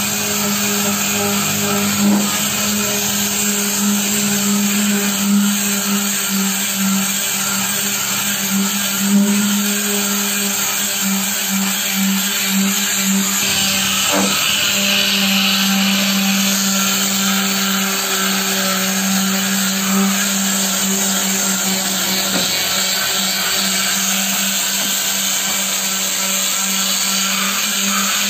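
Electric palm sander running steadily with a constant hum, its pad scouring the metal tailgate of a pickup to smooth down old body filler before painting.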